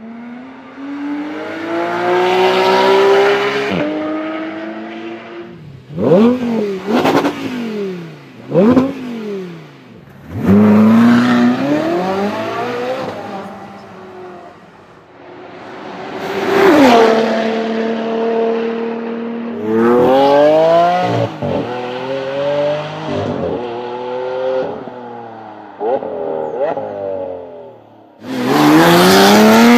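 High-performance car engines revving and accelerating in a series of separate clips: several sharp throttle blips, rising runs through the gears, and a held high engine note.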